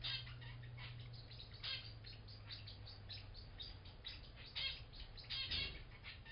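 Pet parrotlets making rapid squeaky sounds while mating, like a squeaky bed, with several louder short beeping calls from zebra finches. A low steady hum fades out about two-thirds of the way through.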